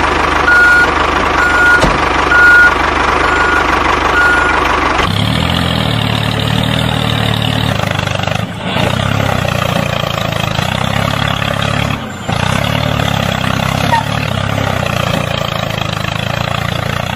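Tractor engine running, with a reversing beeper giving about seven short beeps, roughly one every 0.7 s, over the first five seconds. About five seconds in, the sound changes abruptly to a steady, lower engine idle.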